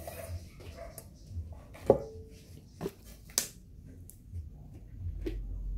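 An aluminium cooking pot knocking and clanking as it is handled after being greased with oil. There are a few sharp knocks, and the loudest, about two seconds in, rings briefly.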